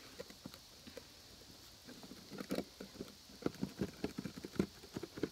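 Homemade slime being squished and pulled in the hands, making sticky clicks and pops that come irregularly and grow busier after about two seconds.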